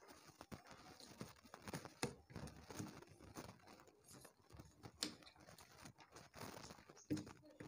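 Faint eating sounds: fingers squishing and mixing rice on plates, with chewing and a few sharp clicks.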